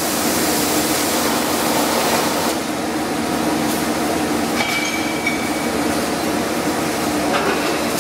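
TIG welding arc on a 2-inch steel pipe: a steady hiss with a low hum underneath. The highest part of the hiss eases off about two and a half seconds in.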